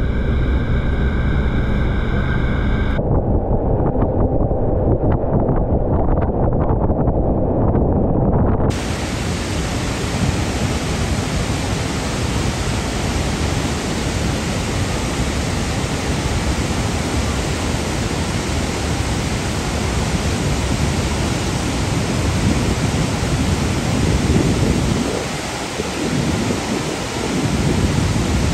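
Iguazú Falls waterfall roaring: a loud, even rush of falling water and spray from low to high pitches. In the first seconds an engine hums with steady tones and cuts off about 3 seconds in. A duller, low rush follows until about 9 seconds in, when the full roar takes over.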